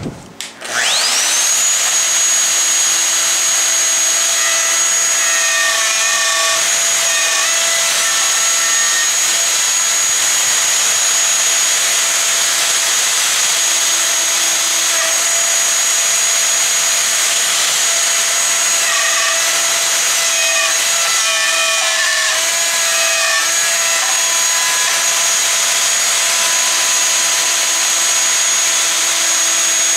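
Festool plunge router starting up, its whine rising within about a second to a steady high pitch, then running at full speed while plunge-cutting a through mortise in a wooden mallet head. The tone wavers briefly twice.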